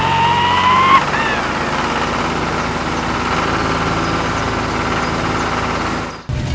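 A steady engine running sound, of the kind dubbed onto a miniature tractor, with a rising whistle-like tone over it in the first second. It cuts off abruptly near the end.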